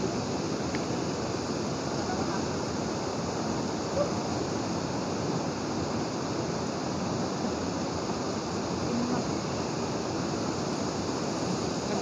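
Steady rush of a waterfall's falling water, an even noise that does not change.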